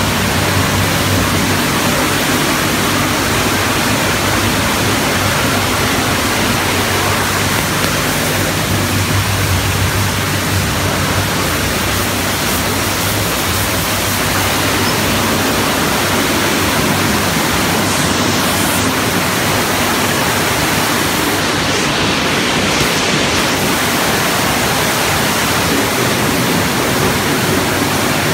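Automatic rollover car wash running: red rotating brushes scrubbing a small car while water sprays over it, a loud steady rush of water and brush noise with a low hum underneath.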